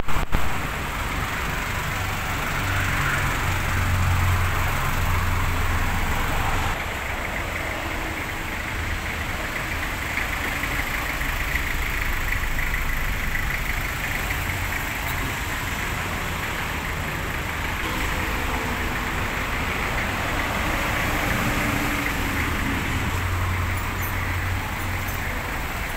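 A motor vehicle engine running steadily, with a low hum that swells a few seconds in and again near the end.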